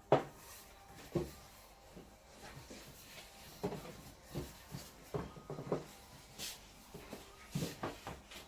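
Irregular knocks and thumps of hands working a ball of fresh egg pasta dough on a work surface, kneading it; the loudest knock comes right at the start, with a quicker run of thumps in the second half.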